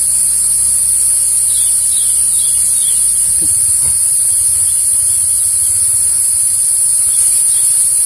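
Forest insects, crickets or cicadas, making a steady, high-pitched drone. A faint low hum underneath stops about three and a half seconds in.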